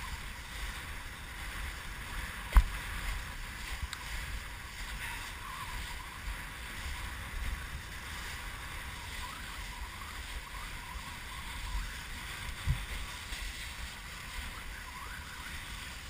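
Kiteboard planing across choppy water, the water hissing and splashing under the board, with wind rumbling on the action camera's microphone. A sharp knock about two and a half seconds in, and a smaller one later.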